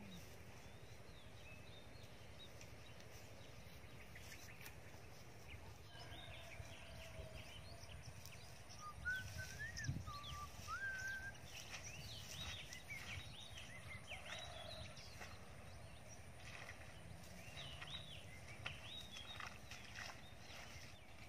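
Quiet countryside ambience with steady low background noise and birds chirping in many short, quick calls that get busier after the first few seconds. A few clear whistled notes come about nine to eleven seconds in.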